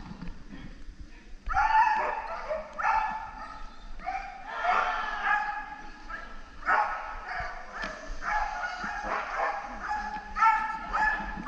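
A dog barking and yipping over and over, in short volleys about a second apart with brief pauses: an agility dog barking as it runs the course with its handler.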